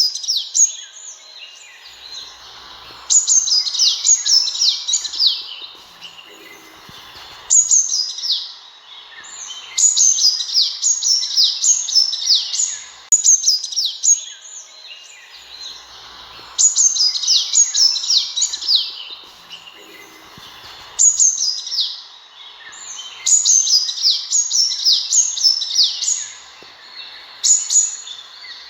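Sunbird calling: bouts of quick, high-pitched descending notes, each bout a couple of seconds long with short pauses between, repeating over and over.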